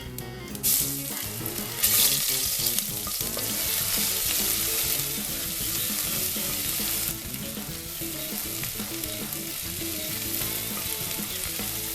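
Ginger garlic paste sizzling in hot ghee with whole spices in a pressure cooker. The sizzle swells about a second in and eases a little after about seven seconds.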